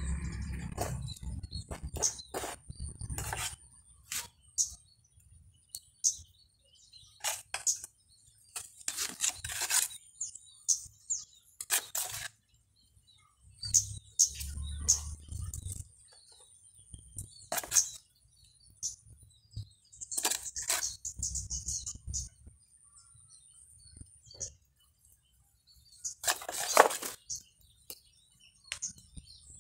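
Hands working soil, sand and stones in a bonsai pot: scattered short scrapes, rustles and clicks, the loudest a burst near the end.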